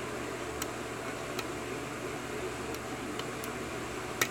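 Light metallic clicks of a lock pick working the pin tumblers of a 6-pin Corbin lock cylinder under light tension: several faint scattered ticks and one sharper click near the end, over a steady background hum.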